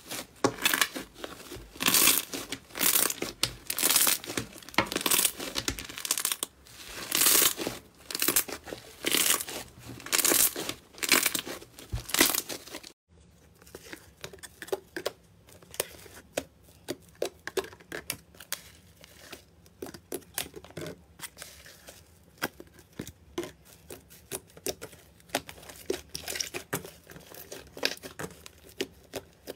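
Slime being squished and stretched by hand, in loud noisy swells about once a second. About halfway through it cuts off abruptly, then gives way to a quieter run of quick crackling pops.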